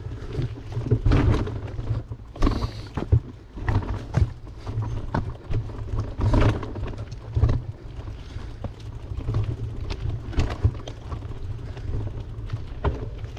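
Wind rumbling and buffeting on the microphone of a camera on a moving bicycle, with irregular knocks and rattles scattered through it.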